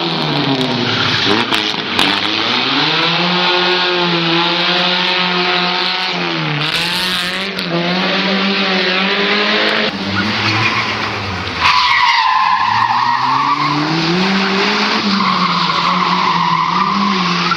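Rally car engines revving hard and easing off through a tight cone course, the engine note dropping and climbing again several times, with tyres skidding. About twelve seconds in, a second car's engine takes over, revving with tyre squeal.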